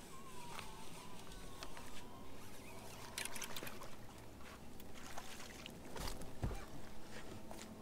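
Water and boat sounds with scattered clicks while a hooked largemouth bass is fought to a bass boat and swung aboard: a short splashy hiss about three seconds in and a couple of low knocks about six seconds in.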